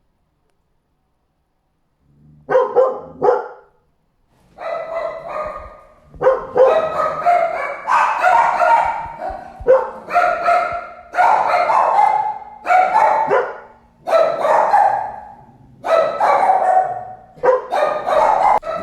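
Dog barking. Two short barks about two seconds in, then repeated runs of rapid, loud barks, one cluster about every second.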